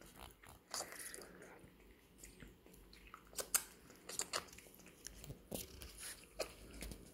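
Baby raccoon sucking milk from a bottle's nipple: faint, irregular wet clicks, a few a second.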